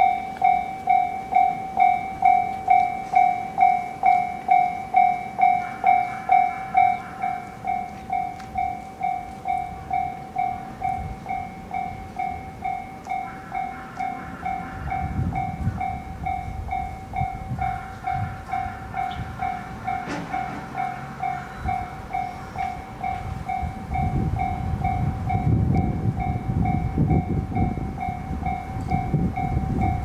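Japanese railway level crossing warning bell ringing steadily, a little over two strikes a second, dropping to a softer level about seven seconds in. A low rumble of an approaching train builds over the last few seconds.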